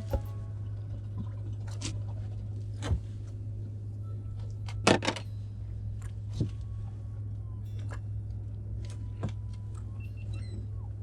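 A steady low hum with scattered knocks and clicks, the loudest a sharp knock about five seconds in.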